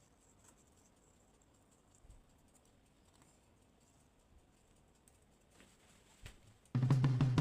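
Quiet room with a few faint light clicks and taps, then background music starts suddenly near the end.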